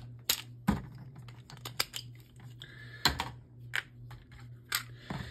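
Sharp, irregular plastic clicks and clacks as Beyblade spinning tops are handled, set down in and picked up out of a plastic Beyblade stadium.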